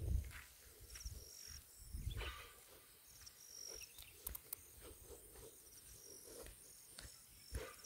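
Faint countryside ambience of grassland: short high chirps recur every second or so, with low thumps at the start, about two seconds in and near the end.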